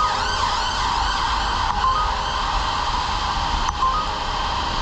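Emergency vehicle siren sounding in a fast rising-and-falling yelp that fades after a second or two, over a steady rushing street noise. A few short high beeps sound about two seconds apart.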